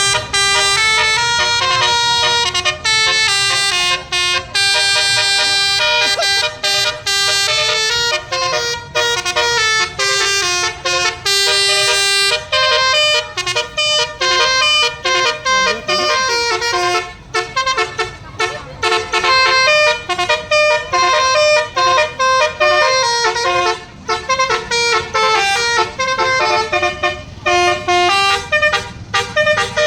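Indonesian bus 'telolet' musical horn, a Basuri-type multi-tone air horn, playing quick stepping melodies of several notes. It sounds almost without a break at first, then in shorter choppy runs from about halfway through.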